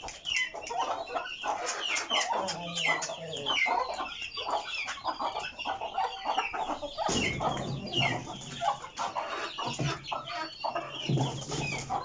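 Many caged Aseel chicks peeping in short, falling high calls, with chickens clucking among them. A low rumble joins about seven seconds in and again near eleven seconds.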